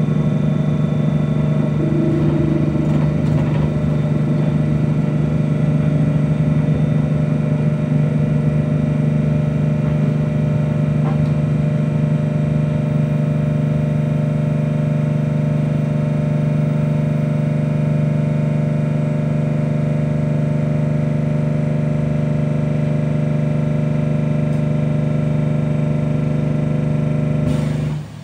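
Steady electrical hum inside a moving electric bus: a low, unchanging tone with many overtones, loud and even, that cuts off suddenly near the end.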